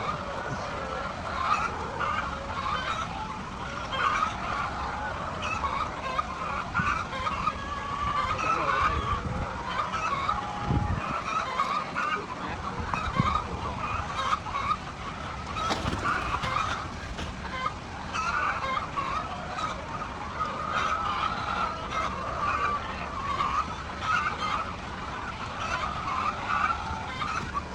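A flock of laying hens clucking and calling all at once, a continuous overlapping chorus, with a few brief knocks.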